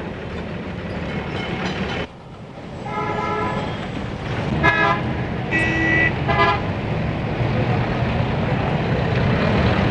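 Street traffic rumble with a tram running, and several short vehicle horn toots a few seconds in, one of them a two-note honk.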